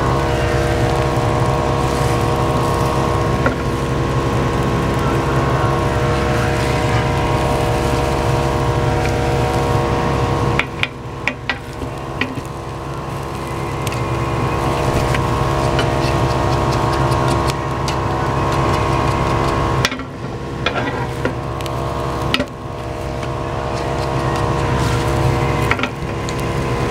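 Kitchen ventilation fan running loudly with a steady hum and whir of fan wind. A few light clicks and knocks come about ten seconds in and again around twenty seconds in, as chopsticks and a square omelette pan are handled on the gas burner.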